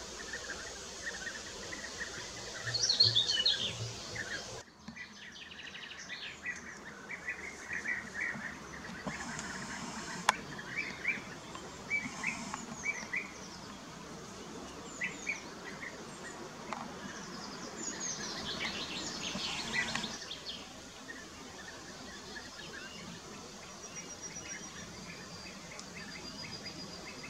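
European bee-eaters calling: short chirping calls at irregular intervals, with denser bursts of calls about 3 seconds in and again around 18 to 20 seconds in. The background changes abruptly twice, about 4.5 and 20 seconds in.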